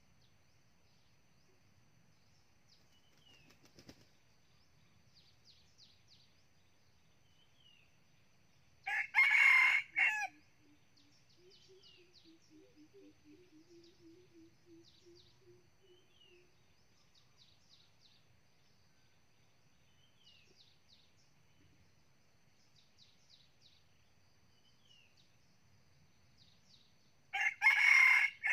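Red junglefowl rooster, nine months old, crowing twice: once about nine seconds in and again near the end. Each crow is short and loud, broken into two parts.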